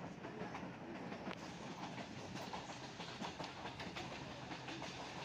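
Passenger train running along the track: a steady rumble and rattle of the carriage with faint clicking of the wheels on the rails, heard through an open carriage door.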